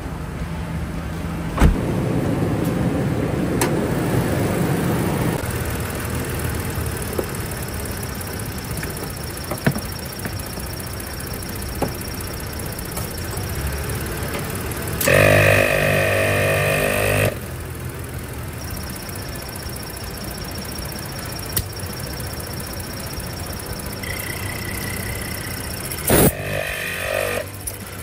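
ARB twin air compressor running steadily to re-inflate a patched tire. About halfway through, a louder pitched sound rises over it for about two seconds.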